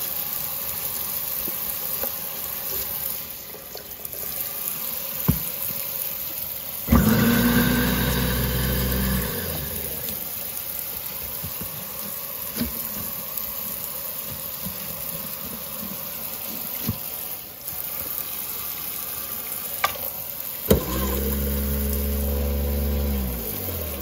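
Garbage disposal switched on twice, each time humming for two to three seconds before it stops, the second time winding down as it cuts off. Tap water sprays into the sink throughout, with a few light knocks in between.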